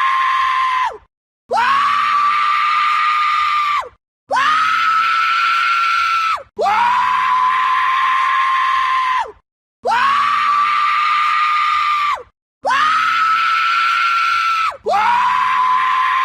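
A man screaming, one long scream after another: about six held screams of two to three seconds each, every one rising quickly to a high steady pitch and dropping off at the end, with short silent gaps between them.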